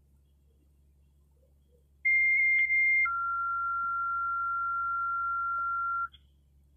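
Two-tone sequential paging tone-out on a fire dispatch radio, alerting units to a dispatch. About two seconds in, a higher tone sounds for about a second with a few clicks over it, then drops to a lower tone held for about three seconds that cuts off sharply.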